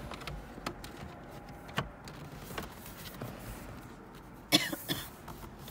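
Plastic dashboard trim of a Holden VE Commodore being handled and pressed into its clips: a few light clicks and knocks, then a brief louder noise about four and a half seconds in.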